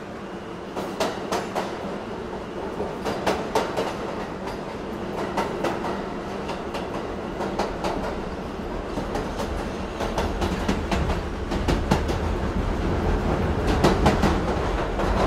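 Battery-powered Takara Tomy Plarail toy train running on plastic track: a steady motor whir with small clusters of sharp clicks every second or two as the wheels run over the track joints.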